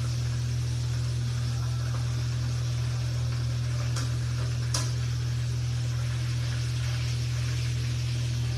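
Whole fish frying in hot oil in a wok: a steady hiss over a loud constant low hum, with two sharp clicks of metal tongs on the pan about four seconds in, under a second apart.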